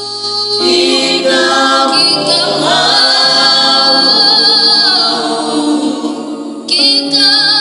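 A cappella choir singing in parts, with several voices holding and gliding between long notes; the sound dips briefly about six seconds in, then the voices come back in together.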